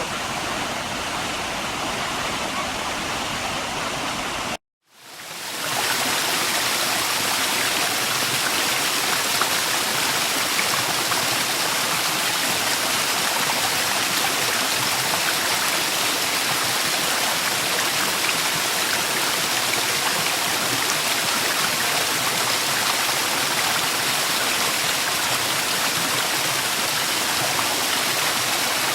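Waterfall: a steady rush of falling water. It cuts out for a moment about five seconds in and fades back up slightly louder.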